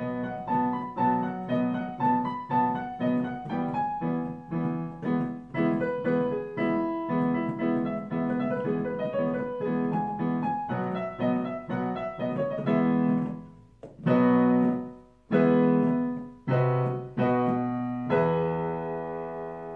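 Piano being played in an improvised piece: a steady flow of notes and chords, then in the second half a few loud separate chords with short pauses between them, ending on a long held chord that slowly fades.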